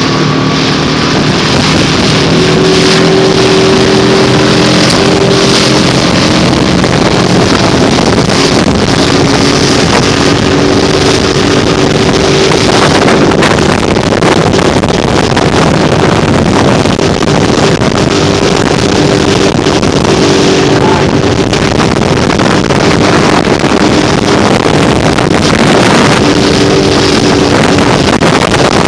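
Motorboat engine running steadily at speed, with a continuous rush of wind and water and wind buffeting the microphone.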